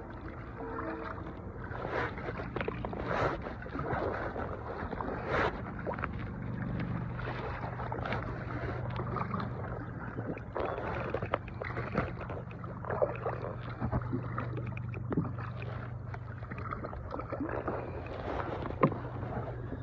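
Water sloshing around a small fishing boat, with scattered knocks and splashes against the hull over a steady low hum; one sharper knock comes near the end.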